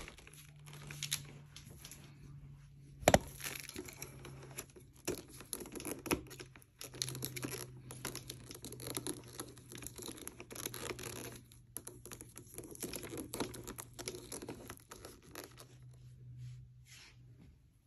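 Hard plastic parts of a Shark NV380 upright vacuum being handled and fitted together: scraping and rustling with scattered clicks, and one sharp click about three seconds in.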